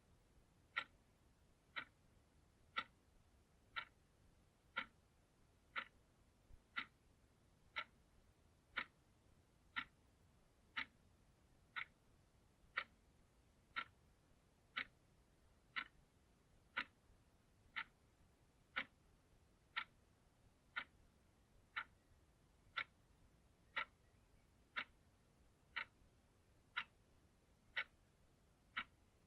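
Analog clock ticking steadily, one sharp tick about every second.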